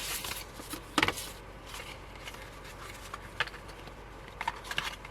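Photocards and album packaging handled on a tabletop: light handling noise with a sharp tap about a second in and a few lighter clicks near the end.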